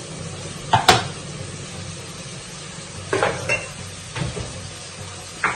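Metal cookware clattering as a pressure cooker's lid and pot are handled on a gas stovetop. There is a sharp clank about a second in, a few knocks between three and four seconds, and one more near the end, over a steady low hum.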